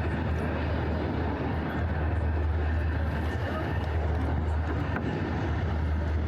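Steady low rumble of city traffic, an even drone with a constant deep hum beneath it.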